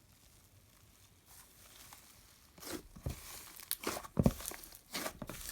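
Slime being squeezed and stretched by hand, making irregular crackles and pops. It is faint at first and grows louder from about halfway through.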